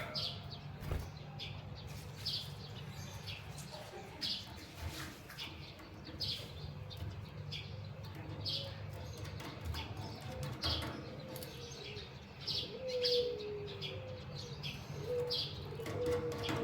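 Small cage birds, a canary and a white-headed munia, giving short high chirps about once a second over a steady low hum. Faint lower drawn-out tones come in during the second half.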